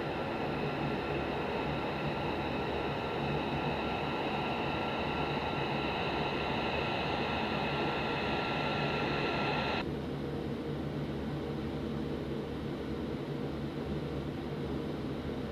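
F-22 Raptor's twin F119 turbofan jet engines running at taxi power: a steady rush with a high turbine whine. About ten seconds in the whine drops away abruptly, leaving a duller steady rush.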